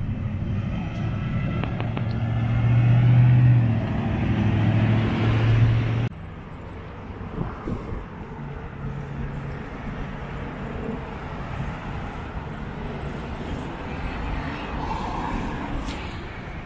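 Road traffic: a loud, low engine rumble for about six seconds that cuts off abruptly, then quieter, steady traffic noise.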